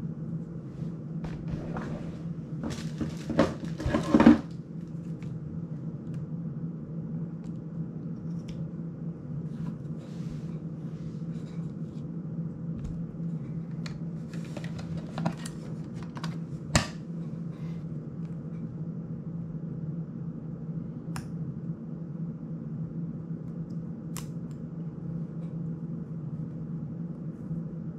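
Small plastic and metal drone parts and hand tools being handled on a tabletop: a louder burst of scraping and rattling about three to four seconds in, then scattered sharp clicks, over a steady low hum.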